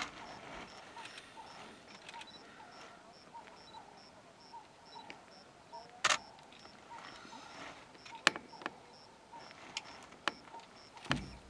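Quiet open-air ambience with a faint chirp repeating evenly about three times a second, broken by a handful of sharp clicks, the loudest about six seconds in, and a low thump near the end.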